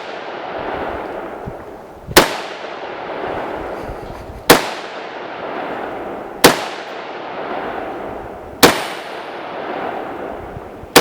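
AR-15 rifle fired in slow semi-automatic shots, four sharp cracks about two seconds apart, each trailing off in a long echo.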